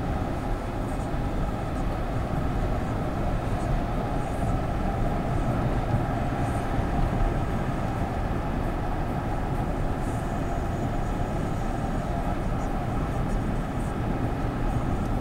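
Steady road and engine noise of a car driving along behind a group of cyclists, with no change in pitch or level.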